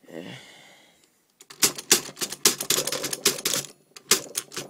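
Vintage Remington Rand Standard manual typewriter being typed on: a fast run of key strikes for about two seconds, a short pause, then a few more strikes near the end.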